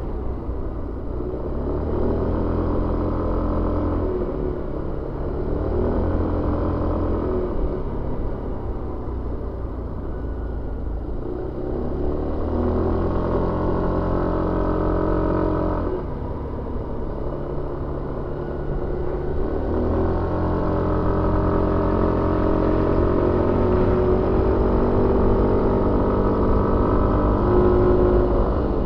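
Suzuki Avenis 125 scooter's single-cylinder four-stroke engine running under way, heard on board. Its note climbs as the throttle opens, drops back about sixteen seconds in, then climbs again and holds higher near the end.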